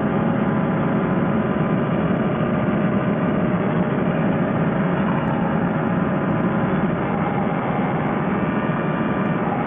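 Fresh Breeze Monster paramotor's two-stroke engine and pusher propeller running steadily in flight, with rushing air over it. The engine is short on power and cannot climb; the owner later traced the trouble to a failing ignition, with a new stator and coil ordered for no spark.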